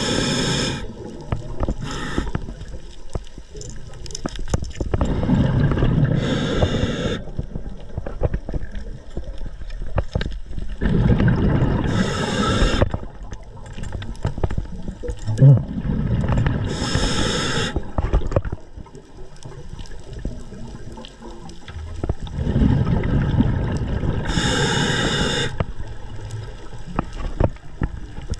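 Scuba diver breathing through a regulator underwater. Each inhale gives a short hiss, and each exhale gives a rumbling gurgle of exhaust bubbles, in a cycle repeating about every five to six seconds.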